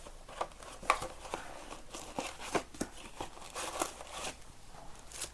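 Trading card packs and cards being handled: wrappers crinkling, with a run of irregular sharp rustles and clicks.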